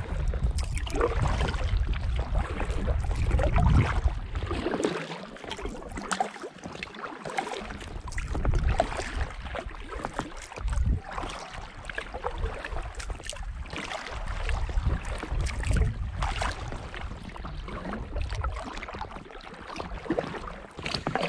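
Kayak paddle strokes splashing and dripping beside a Gumotex Twist 2 inflatable kayak, with wind buffeting the microphone, heaviest in the first four seconds.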